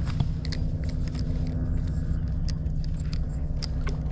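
A steady low rumble with a faint hum, with small sharp clicks and ticks scattered through it from fishing tackle being handled.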